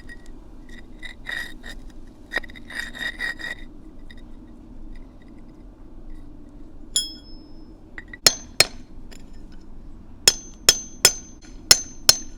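A loose brick paver being worked on with hard tools: scraping clinks over a few seconds, then about seven sharp, ringing knocks in the last four seconds.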